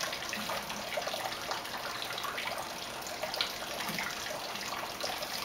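Steady rushing noise like running water, even throughout with no distinct events.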